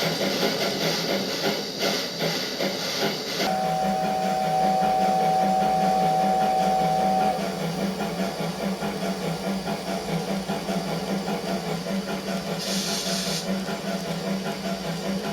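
Sound-box steam locomotive effects for a KATO 8620 model: rapid chuffing with steam hiss, then a two-note steam whistle held for about four seconds, then steady running noise with a short burst of steam hiss near the end. A steady low hum runs underneath.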